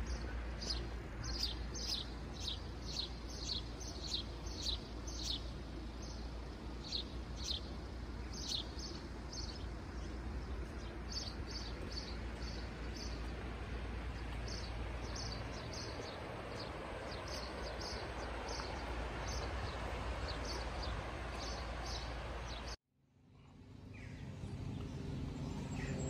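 Small birds chirping again and again in short high chirps, over a steady rushing outdoor background noise. About three-quarters of the way through the sound cuts out suddenly, and a quieter low hum fades back up.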